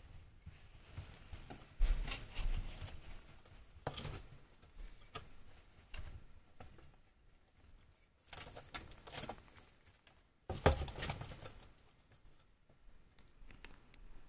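Degus rustling and scrabbling through hay and shredded paper bedding in irregular bursts, with two heavier thumps.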